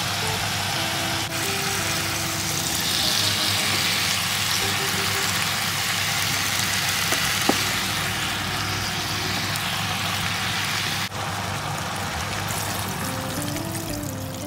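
Sliced pork and chopped daikon and carrot sizzling as they stir-fry in a pot, stirred with a wooden spatula, with one brief knock midway. Background music plays over it.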